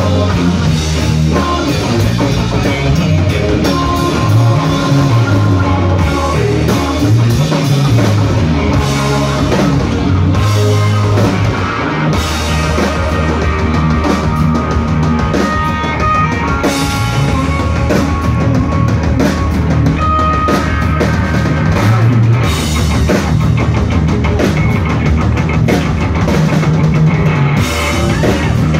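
Live rock band playing loudly: electric guitar, drum kit and bass guitar.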